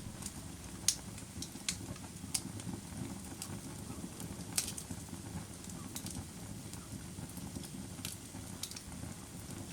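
Firewood burning, with a steady low rumble of flame and sharp pops and crackles at irregular moments, the loudest about a second in and again near halfway.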